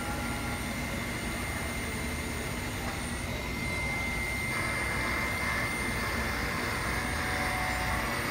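Wire-cut EDM machine running a cut: a steady mechanical whirring with a thin high whine over it, growing a little louder and fuller about four and a half seconds in.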